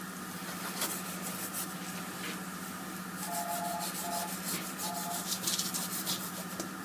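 Butcher's knife cutting through a pig carcass's belly skin and flesh: irregular rough scraping strokes, with a steady low hum underneath.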